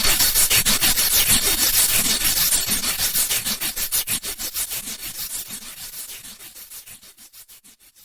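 Synthesized sci-fi sound effect: a harsh, hissy noise chopped into rapid, even pulses, fading steadily and dying away near the end.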